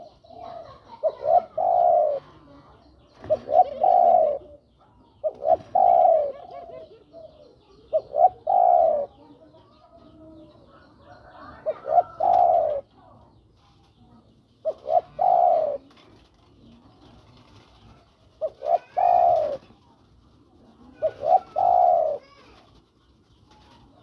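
Spotted dove (tekukur) cooing, a call to females. Eight repeated phrases, two to three seconds apart, each a couple of short notes followed by a longer wavering coo.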